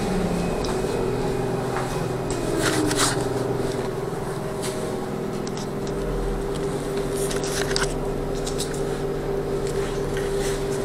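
Trolleybus running, heard from inside the passenger cabin: a steady electric hum from its drive, with one whine gliding down in pitch about two seconds in, over road rumble and scattered rattles and clicks from the cabin fittings.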